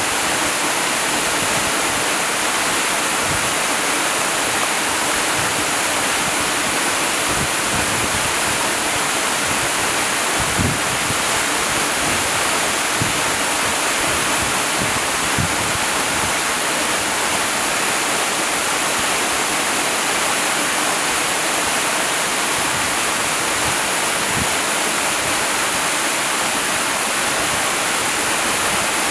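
Waterfall pouring steadily: a dense, unbroken rush of falling water, bright and hissing, with faint low splashes here and there.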